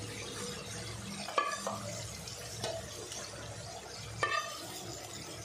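A spoon stirring minced beef gravy in a thick-bottomed aluminium kadai, knocking against the pan three times over the steady sizzle of the gravy cooking.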